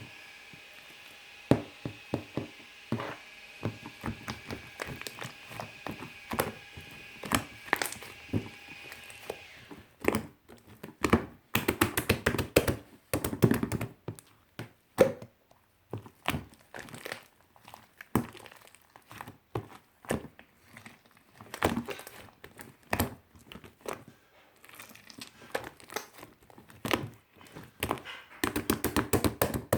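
Fluffy shaving-foam slime being pressed, poked and stretched by hand, giving a run of sharp clicks and crackles as trapped air bubbles pop, with denser squishing stretches about twelve seconds in and near the end. A faint steady hum sounds under it and stops about ten seconds in.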